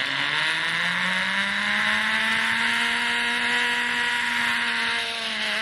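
Zip-line trolley's pulleys rolling along the steel cable under a rider: a whirring hum with a hiss over it. It rises in pitch in the first second as he picks up speed, holds steady, then drops slightly near the end as he slows.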